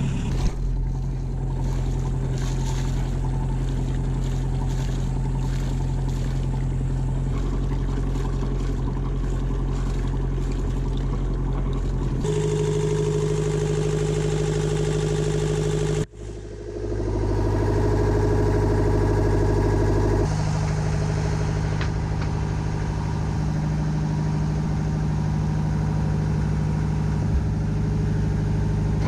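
Small inboard marine diesel engine running steadily just after being started. Its tone changes abruptly a few times partway through, with one brief sharp drop in level.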